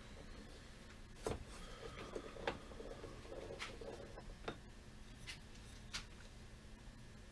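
Faint scattered clicks and light knocks from a benchtop wood lathe's tailstock handwheel being wound back and a turned wooden handle being freed from between the centres. The lathe motor is off.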